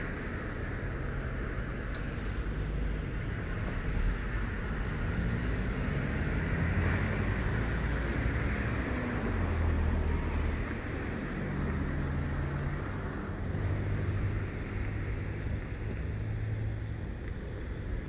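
Low rumble of motor vehicles on a nearby road, the engine tones swelling and fading as vehicles pass.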